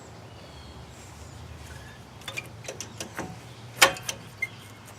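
A few light, sharp metallic clicks and taps of tools and parts being handled, the loudest nearly four seconds in, over a faint low hum.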